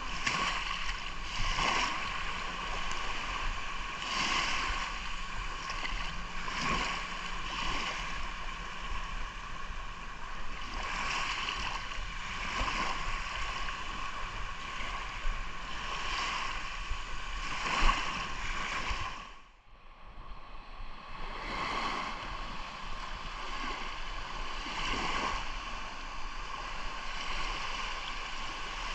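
Sea surf: small waves washing in one after another, swelling every two to three seconds, with the sound dropping away briefly about two-thirds of the way through.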